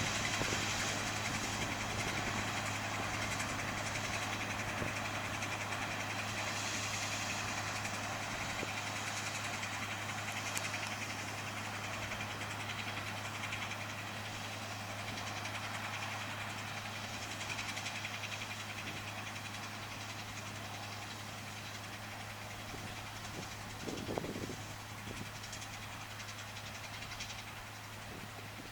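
Massey Ferguson 510 combine running steadily with a constant low hum, slowly growing fainter, with a brief louder noise near the end.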